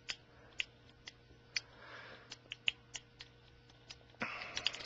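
Small, sharp clicks at irregular intervals from the switch of a hand-built 005 flashlight being worked to step its LED through its modes as a function test, with a short rustle about four seconds in.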